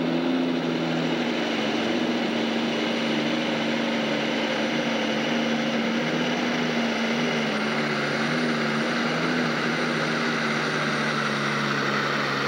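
Multi-engine modified pulling tractor at full throttle under load, pulling the sled down the track: a loud, steady engine drone that holds its pitch throughout.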